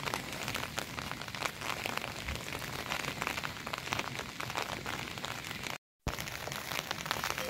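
Steady rain pattering, a dense crackle of drops, cutting out for a moment about six seconds in.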